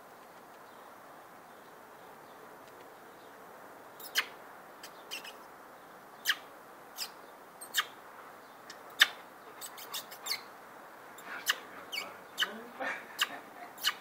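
Nestlings begging in the nest: a run of short, sharp peeps starting about four seconds in and coming faster toward the end.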